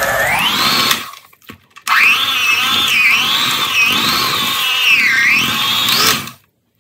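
Electric hand mixer (Hamilton Beach) beating thick cream cheese: its motor whines, cuts out about a second in, then starts again with a rising whine and runs with its pitch rising and falling before stopping near the end.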